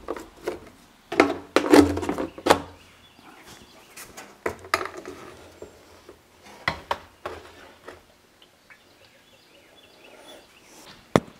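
A rubber fuel hose and spout being handled at a plastic gas can: scattered plastic knocks, clicks and rustles, busiest in the first few seconds, with one sharp click near the end.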